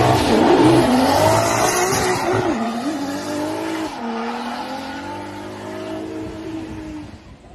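Drift car sliding through a corner: its engine revving up and down hard while the tyres squeal and smoke. Loudest in the first couple of seconds, then fading as the car moves away.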